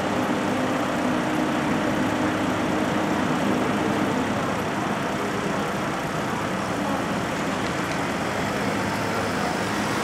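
A heavy machine's diesel engine running steadily, with a low hum that eases off after about four seconds.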